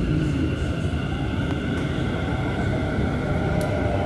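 Delhi Metro Pink Line train starting to pull away from the station, heard from inside the carriage: a steady rumble with a faint electric whine that begins to rise in pitch partway through.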